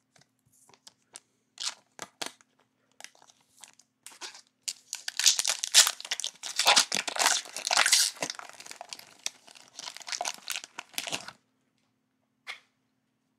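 Wrapper of a trading card pack being torn open and crinkled. It starts as scattered small crackles, becomes a dense stretch of crinkling for about six seconds, then stops suddenly.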